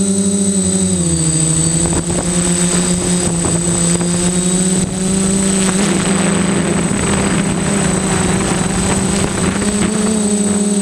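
Quadcopter's electric motors and propellers whirring, heard from a camera mounted on the craft. The steady pitch drops about a second in, rougher rushing noise comes in through the middle, and the pitch rises again near the end.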